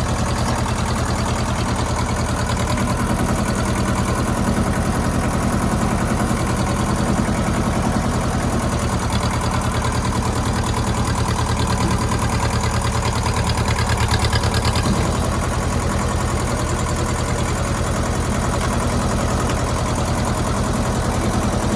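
Ford 1700 compact tractor's three-cylinder diesel engine running at a steady speed, with an even rapid pulsing and no change in pitch.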